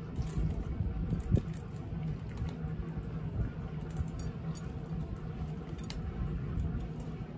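A cat crunching dry kibble from a metal dish: irregular small crunches and clicks, with a louder knock about a second and a half in, over a steady low hum.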